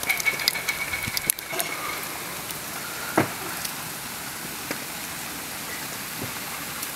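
Steady rain falling, with a scatter of sharp ticks from drops in the first two seconds and one louder tick about three seconds in.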